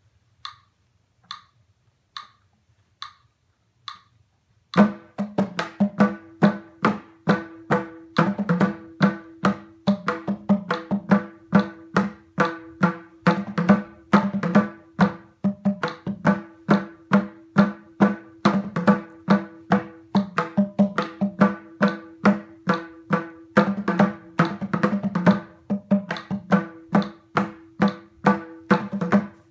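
A few soft, evenly spaced ticks. Then, about five seconds in, a mridangam starts playing a fast, dense run of strokes in rupaka tala, its tuned head ringing at a steady pitch under the strokes.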